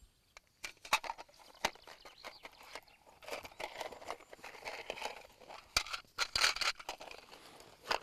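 Small objects being handled: scattered sharp clicks and taps with bursts of rustling. The loudest cluster comes about six seconds in.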